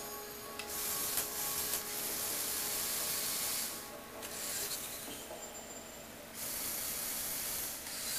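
Motorized Lego Technic tricycle running, its small electric motor and plastic gears giving a hissing whir. The whir drops off about four seconds in and comes back strongly about six and a half seconds in.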